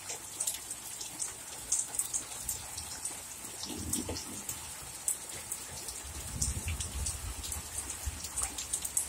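Torrential rain pouring steadily, with many sharp drop impacts close by and a couple of soft low rumbles partway through.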